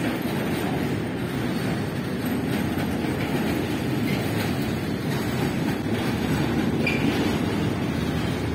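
Loaded flat wagons of a freight train rolling past at steady speed: a continuous rumble of steel wheels on the rails.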